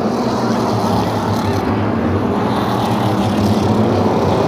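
A field of short-track stock cars running together on the track: the loud, steady drone of several engines at once.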